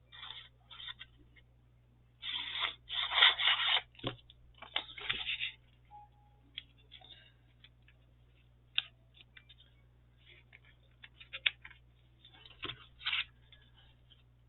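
Paper being handled at a craft table: rustling and scraping, loudest for a stretch about two to four seconds in, followed by scattered light taps and clicks.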